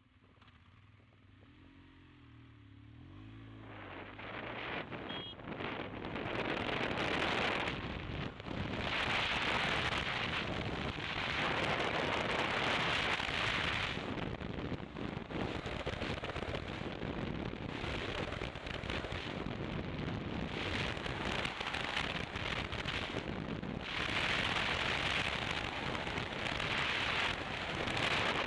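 Wind buffeting the microphone of a camera mounted on a moving motorcycle: a rough, crackling rush that builds over the first several seconds as the bike picks up speed, then stays loud, surging and easing. A faint engine note rises near the start, before the wind covers it.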